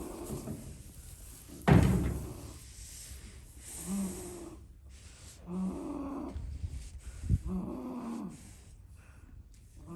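Goat snoring: short, raspy, pitched snores repeating about every two seconds. A loud thump about two seconds in and a sharp click near three-quarters of the way through.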